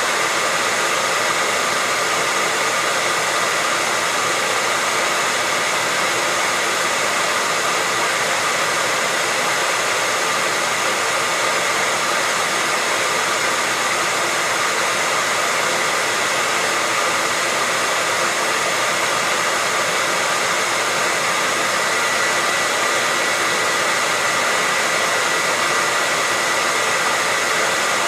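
Hair dryer running continuously: a steady, even rush of air with a faint high whine from the motor, unchanging in level.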